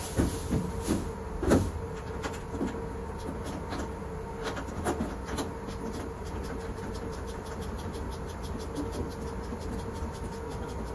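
Steady hum of laundry machinery with a constant tone. A few sharp metallic knocks and clunks in the first two seconds and again around five seconds in, from the open lint-filter housing of a large dryer being handled.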